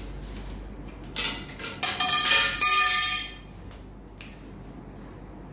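Metal tubes of a fabric wardrobe's frame clanking together: a short clank about a second in, then about a second and a half of clattering with a ringing tone.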